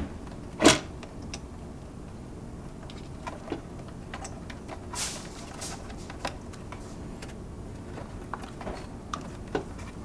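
Hands handling a hoverboard's battery connector and wiring inside its plastic shell: scattered small clicks, scrapes and rustles, with one louder short knock just under a second in.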